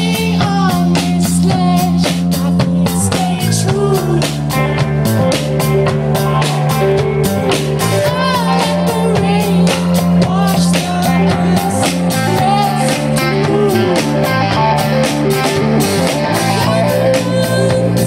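Live rock band playing: electric guitars over a drum kit keeping a steady beat, with held low bass notes that change every second or two.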